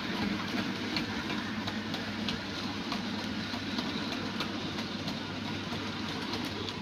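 OO gauge model goods train of four-wheeled wagons rolling past on the track: a steady running rumble and hum, with light, irregular clicks as the wheels cross the rail joints.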